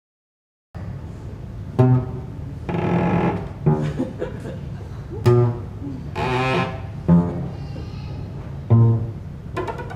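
Solo improvised instrumental music, starting just under a second in: single low pitched notes with sharp attacks every second or two, and a couple of longer held notes between them.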